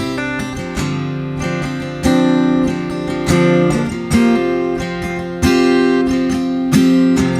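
Acoustic guitar strumming chords, each struck and left to ring about every second or so, with no singing: the instrumental close of the song.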